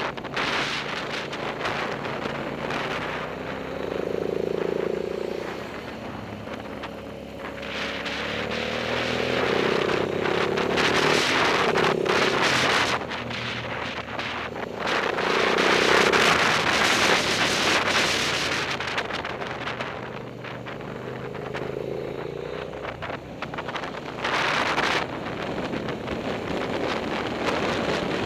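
Motorcycle engine heard from on board, revving up and down through the corners as the throttle opens and closes. Wind buffets the microphone, loudest on the faster stretches about a third and halfway through.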